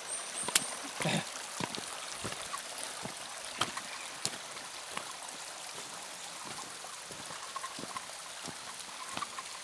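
Shallow mountain stream trickling over stones, a steady rush of water, with scattered crunches and clicks of footsteps on loose rock.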